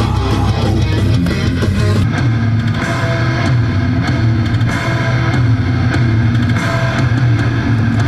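Loud heavy-metal rock music with distorted electric guitar and a drum kit, playing without a break.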